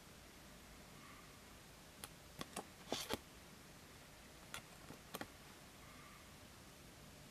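Light clicks and taps from fingers handling a small printed paper card and miniature plastic toy pieces. They come in two short clusters, about two seconds in and again about four and a half seconds in, over a faint steady hiss.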